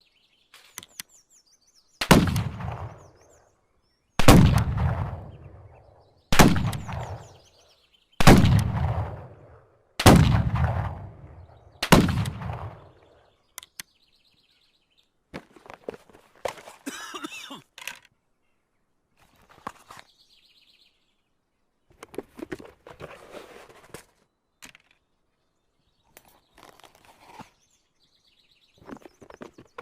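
Colt 1860 Army .44 cap-and-ball revolver fired six times, about two seconds apart, each shot trailing off in a long echo. After the shots come a series of quieter, scattered mechanical clicks and rattles.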